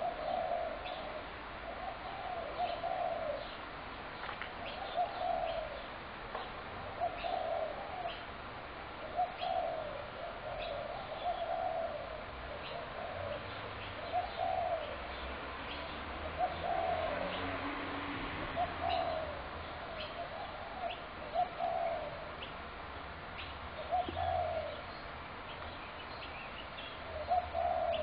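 Spotted doves cooing over and over, a low hooting phrase repeating every second or two, with short high chirps from other small birds scattered through it.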